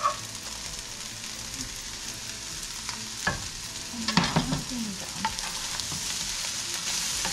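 Fried rice with chicken sizzling steadily in a large frying pan as it is stir-fried, with a few knocks of the utensil against the pan about three and four seconds in.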